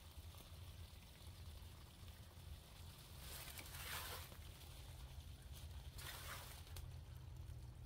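Faint spray of water from a garden hose splashing onto bean plants and soil, coming in two short hissing bursts, about three and a half seconds and six seconds in, over a low steady rumble.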